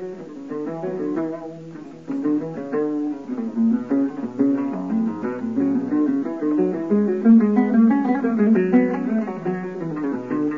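Acoustic guitar music: a lively melody of quick plucked notes over chords.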